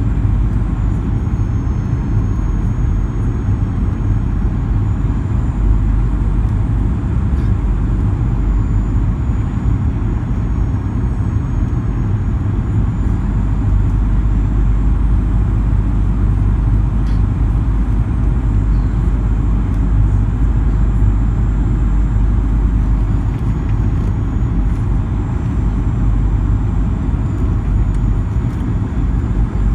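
Steady in-cabin noise of a Boeing 737-900ER on final approach: a low rumble of airflow and its CFM56-7B turbofan engines, with a faint high whine that wavers slightly in pitch.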